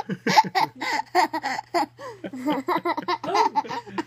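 A toddler girl laughing hard, in quick repeated bursts of giggles.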